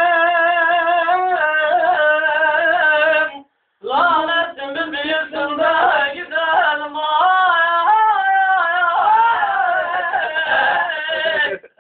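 A singer's voice holding long, wavering, ornamented notes of a Kurdish song. It breaks off for a moment about three and a half seconds in, then goes on until a sudden stop at the very end.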